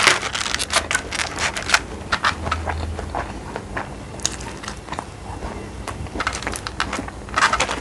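Close-up chewing of crisp food: a string of crackly crunches and clicks, with a louder crunch near the end.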